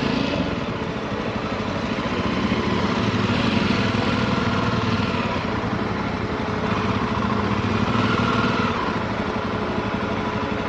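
Motorcycle engine running steadily while riding, its note rising and falling a little.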